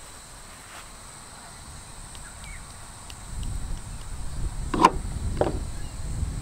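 Two quick knocks of light plastic bowls, about half a second apart, as spices are tipped from one small bowl into another. They sit over a low rumble that starts about three seconds in.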